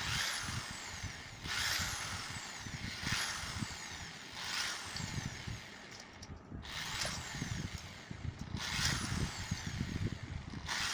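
Corded electric hand drill boring into an old LED bulb, run in short bursts: about six times the motor starts up and then spins down with a falling whine.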